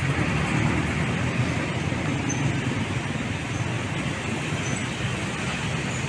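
Steady street traffic noise: motor scooters passing close by, with truck engines running behind them.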